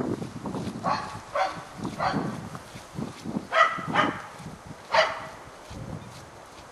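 A dog barking: a series of about six short barks, spread over the first five seconds.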